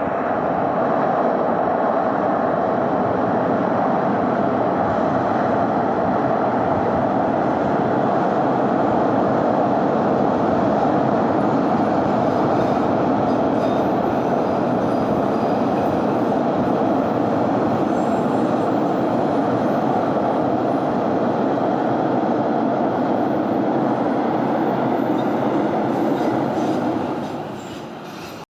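Heavy truck engine running loud and steady at close range, with a rumbling mechanical noise that drops away near the end.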